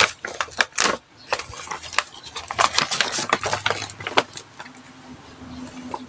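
White paper shopping bag rustling and crinkling as it is handled and unfolded, in an irregular run of quick crackles that is busiest in the middle and thins out near the end.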